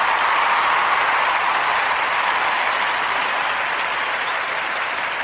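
Applause, a dense steady clapping that slowly fades.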